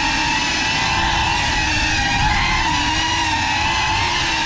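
FPV quadcopter's electric motors and propellers whining in flight, the pitch rising and falling together as the throttle changes.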